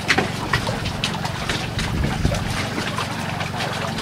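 A small boat's engine running steadily, with water splashing against the hull.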